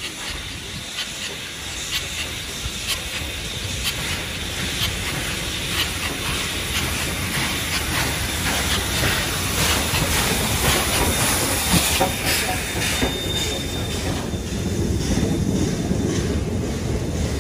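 NSWGR 59 class 2-8-2 steam locomotive 5917 pulling into a station platform, hissing steam, with its wheels clicking over the rail joints. The sound grows louder as the locomotive nears, and a lower rumble comes in near the end as the tender and carriages roll past.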